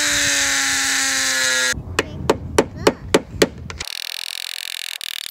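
Rotary tool with a cutoff wheel grinding into the head of a stuck Torx roof-rack bolt, a steady whine that sags slightly in pitch under load and stops a little under two seconds in. Then about six sharp knocks in quick succession, followed by a quieter steady thin hum.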